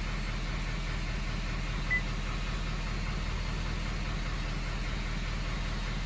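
Duramax L5P 6.6-litre V8 turbo-diesel idling steadily, heard from inside the cab. One short high beep sounds about two seconds in, as the oil-life monitor is reset to 100%.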